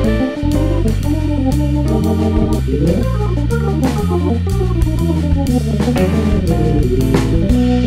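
Instrumental background music with a bass line, a melody of sustained pitched notes and a steady drum beat.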